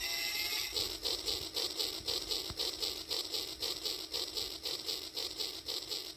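Battery-powered Rail King toy train running along its track, giving a steady rhythmic beat about four times a second.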